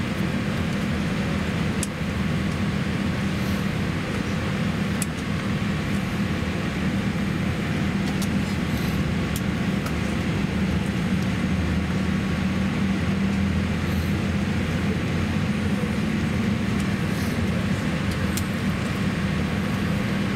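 Steady low cabin hum inside a Boeing 787-8 airliner on the ground as it begins to move back from the gate, with a few faint ticks.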